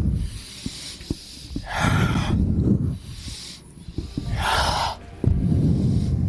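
Deep, audible breaths in and out, paced with cat-cow stretches, close on a headset microphone. There are three long, rushing breaths a second or so apart.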